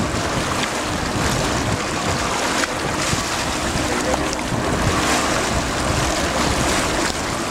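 Wind buffeting the microphone over the steady wash of waves against a fishing boat's hull.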